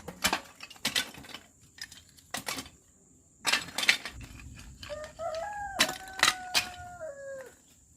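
A rooster crows once, a single long call about five seconds in that falls slightly at the end. Sharp clinks and knocks come on and off throughout.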